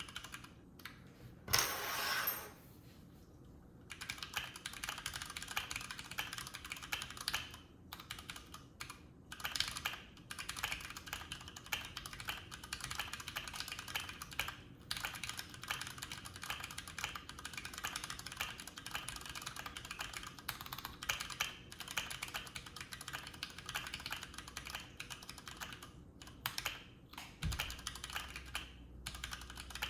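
Fast, continuous typing on a Keychron Q3 mechanical keyboard fitted with Cherry MX Brown tactile switches: a dense run of key clicks with short pauses, during a typing speed test. It begins about four seconds in, after a brief noise.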